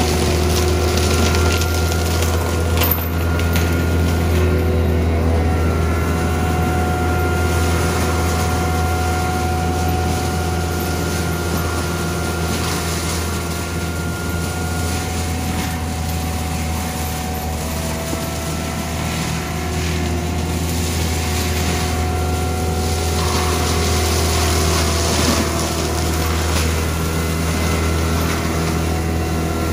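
CAT 299D3 compact track loader's diesel engine running hard, driving a Cimaf forestry mulcher head grinding through brush. A steady loud drone with a whine whose pitch shifts a little now and then as the head takes load.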